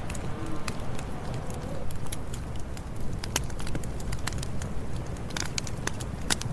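Campfire burning: a steady low rumble of the flames with frequent irregular crackles and pops of burning wood.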